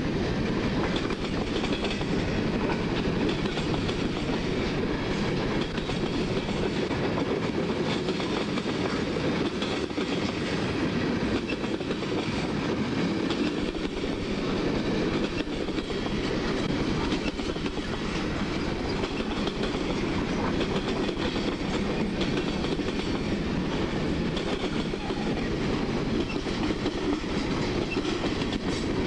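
Freight cars rolling past close by: a steady rumble of steel wheels on the rails, with occasional clicks as the wheels pass over rail joints.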